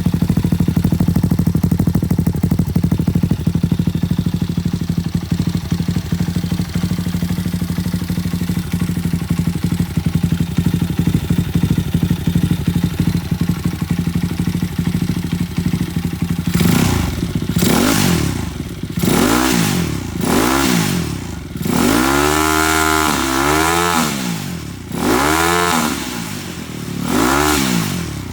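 Small single-cylinder four-stroke engine of a Chinese Honda Monkey replica running through an aftermarket Akrapovic-style silencer with an inner baffle. It idles steadily for about sixteen seconds, then is blipped about seven or eight times, the pitch rising and falling with each rev. The owner notes a slight exhaust leak, including at the mid-pipe joint.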